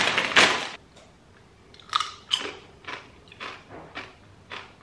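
Crunchy chewing of Doritos tortilla chips, short crisp crunches about two a second, after a loud crackle in the first second.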